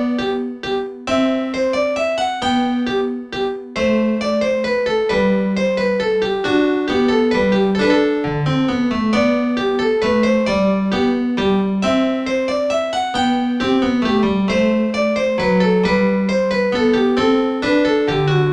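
A Samsung Anycall SCH-E100 polyphonic ringtone played back as MIDI: a piano-like melody with quick running notes over a lower line, with two short breaks in the first four seconds.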